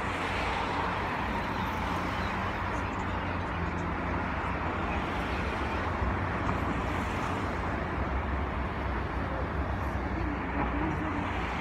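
Steady road-traffic noise: a continuous low rumble with a hiss of passing vehicles.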